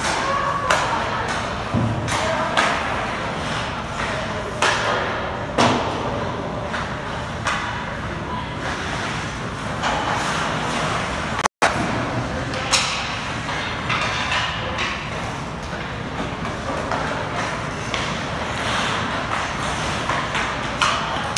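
Ice hockey practice: irregular sharp knocks and thuds of sticks, pucks and boards, every second or two, over a steady noise of play on the ice.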